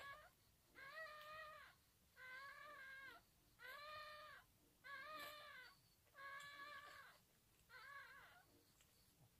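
Faint, repeated high whining cries of a newborn pug puppy, about one a second, each held for most of a second; the cries weaken near the end.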